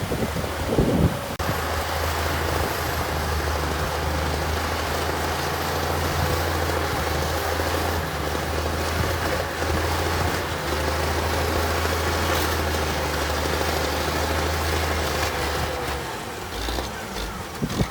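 Diesel engine of heavy earthmoving equipment running steadily, a deep drone with a faint steady whine above it; the drone drops off near the end.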